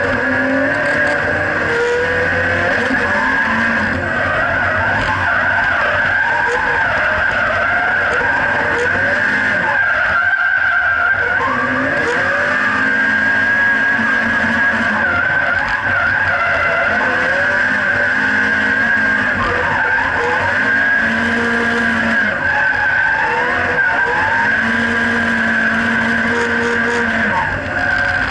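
Turbocharged SR20DET four-cylinder of a Nissan 180SX drift car, heard from inside the cabin, revving up and down through a drift run over steady tyre squeal. The engine briefly drops off about ten seconds in.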